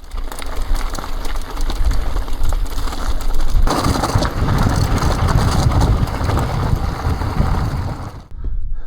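E-bike rolling over a rough gravel track: tyres crunching and wind rushing on the microphone. It gets louder about four seconds in and stops abruptly near the end.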